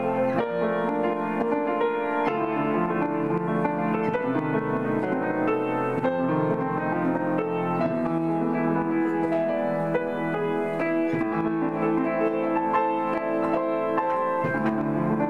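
Piano being played: a grade 5 practice piece, a continuous run of notes and chords at an even level.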